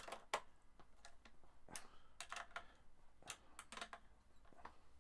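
Light, irregular clicks and taps of fingers and metal working the tuning machines on a Les Paul's headstock during restringing, about ten in all, the sharpest about a third of a second in.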